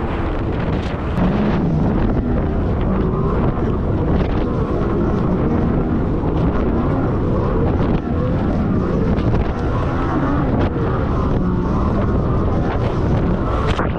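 Thundercat racing inflatable's outboard motor running hard under way, its pitch wavering up and down, with heavy wind noise on the microphone.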